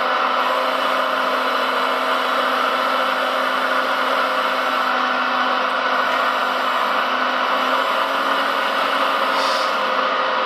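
Steady whir of a radio-controlled hydraulic construction model's electric pump and motors running, with no break or change in level.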